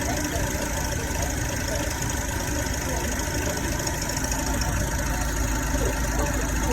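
Holden Captiva engine running steadily with a rattle from the engine.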